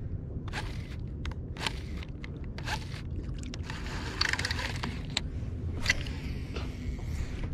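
Handling noise while reeling in a lure: a string of small clicks and scrapes from a baitcasting reel being cranked and a shirt brushing against the chest-mounted camera, with a denser rustle about four seconds in, over a steady low rumble.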